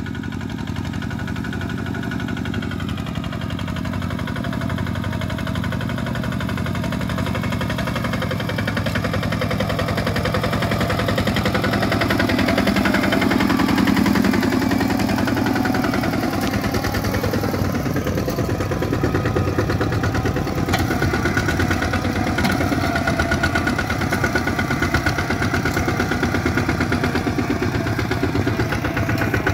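Diesel engine of a two-wheel walking tractor running steadily with a fast, even chugging beat. It grows louder over the first dozen seconds, then holds steady.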